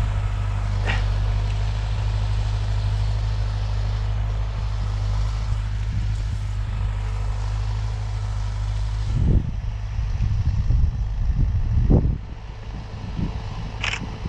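Tractor diesel engine running steadily with a low, even hum. From about nine seconds in the hum gives way to irregular low rumbling of wind buffeting the microphone.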